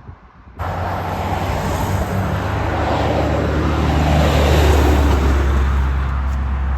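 Car travelling at road speed: steady road noise with a low engine and drivetrain hum, starting abruptly about half a second in.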